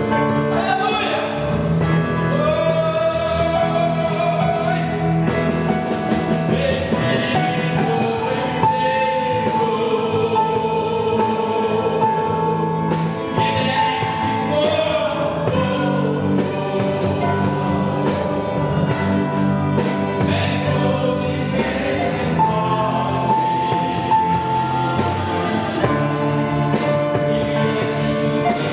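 Live gospel worship music: voices singing a melody together over sustained electronic keyboard notes, with a drum kit's cymbals keeping time from about a third of the way in.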